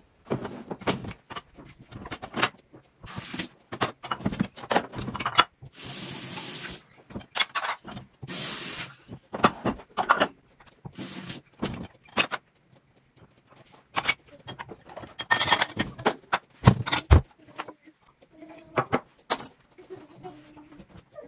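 Dishes, glasses and cutlery clinking and knocking as they are handled in an open dishwasher's racks: many short separate clatters, with a couple of longer scraping rattles of about a second each around six and eight seconds in.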